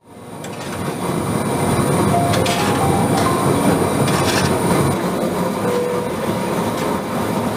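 Steady mechanical rumble and rattle with faint squeals and a few sharp clanks. It fades in over the first second.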